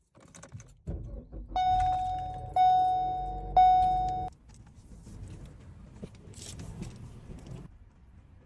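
A car's warning chime sounds three times, about a second apart, each tone fading out, over a low rumble. Quieter rustling and clicks follow.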